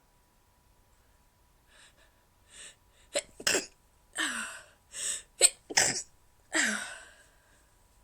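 A woman stifling a run of sneezes. A couple of faint building breaths lead into several sharp, muffled sneezes with breathy gasps between them. The loudest comes just past halfway, and the run trails off near the end.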